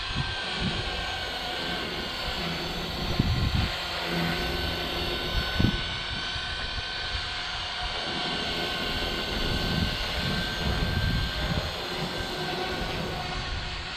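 Walkera V450D03 electric RC helicopter in flight: a steady whine from its motor and rotors. Irregular low rumbles of wind buffet the microphone.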